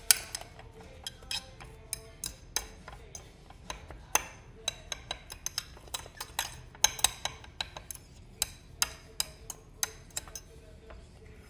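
A utensil clinking and tapping against a bowl in many quick, irregular strikes while a soft mixture of cotton, shampoo and lotion is stirred.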